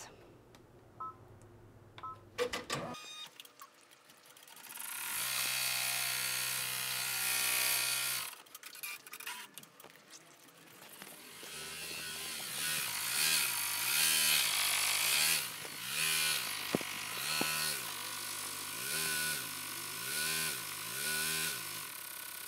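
Baby Lock Enterprise ten-needle embroidery machine stitching on felt in the hoop. It starts up about four seconds in and runs steadily, then its pitch and level rise and fall in repeated swells, roughly one a second, as it sews.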